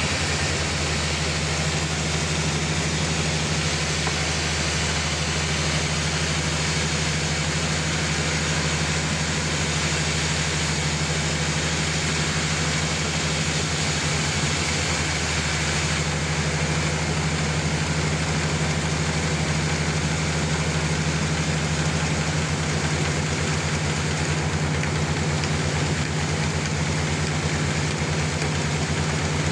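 Sawmill's engine running at a steady speed, a constant low hum with an even hiss over it.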